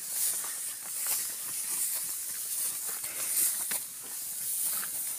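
Tall dry grass rustling and crackling as people and grazing cattle push through it, with irregular short crackles over an even hiss.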